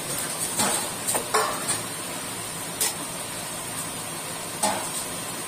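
Medu vadas (urad dal fritters) deep-frying in hot oil in a kadai: a steady sizzle, with about five sharp clicks along the way.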